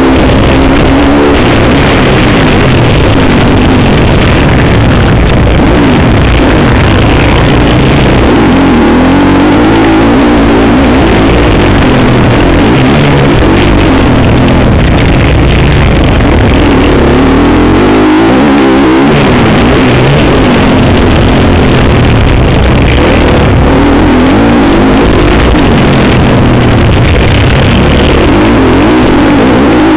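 Motocross bike engine revving up and down repeatedly as the bike is raced around a dirt track, heard from on the bike itself. It is loud enough to overload the recording.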